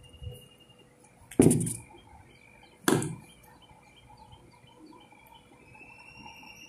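Two loud knocks of kitchenware, about a second and a half apart, each dying away quickly. Faint bird chirps in the background.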